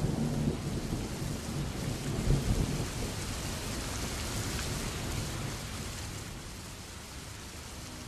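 Heavy rain pouring down steadily, with a low rumble in the first couple of seconds that dies away, leaving an even hiss of rain.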